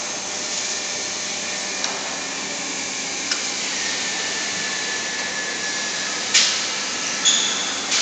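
Steady hum and hiss of a running induction melting furnace, with a thin high whine that sinks slightly in pitch through the middle, while molten aluminium is tipped into a ladle. Four short metallic clanks from the ladle and tilting gear, the loudest two near the end.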